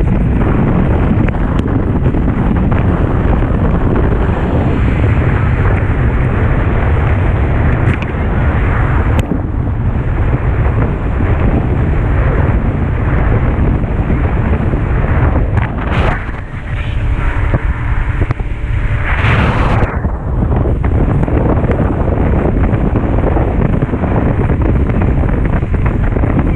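Heavy wind buffeting the microphone of a fast-moving small motorboat, over the boat's engine and water rushing past the hull. About two-thirds of the way through the wind briefly eases and the engine tone comes through, then a short rushing burst follows.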